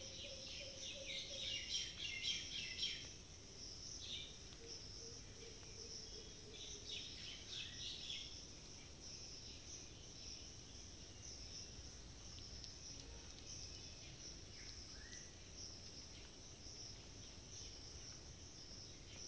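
Outdoor ambience: a steady high insect drone, with bursts of bird chirps, loudest in the first three seconds and again around seven to eight seconds in.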